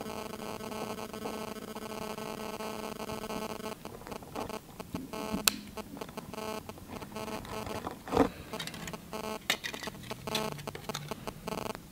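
Light, scattered clicks and taps of a thin metal pick against the metal LCD backplate of an iPhone 6 screen assembly, starting about four seconds in, the sharpest about five and eight seconds in. Under them runs a faint steady electrical hum.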